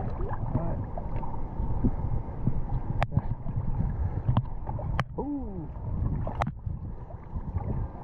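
Water sloshing and gurgling, with a few sharp clicks and, about five seconds in, a short tone that slides down in pitch.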